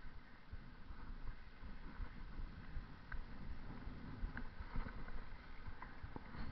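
Bicycle riding over brick paving and asphalt: an uneven low rumble of tyres and wind buffeting the GoPro's microphone, with a few light clicks and rattles in the second half.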